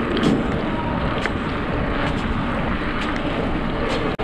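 Steady wind rumble on the microphone of a handlebar-mounted camera on a moving bicycle, mixed with road noise, with a few light clicks. The sound cuts out briefly near the end.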